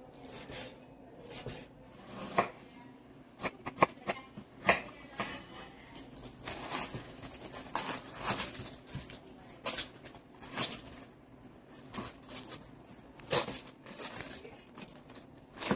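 Kitchen knife cutting on a wooden cutting board, first through pork fat and then through an onion: sharp knocks of the blade against the board, with papery rustling and tearing as the dry onion skin is peeled.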